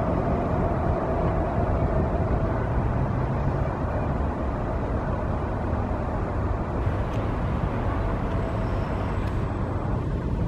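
Steady low outdoor rumble with no distinct event standing out.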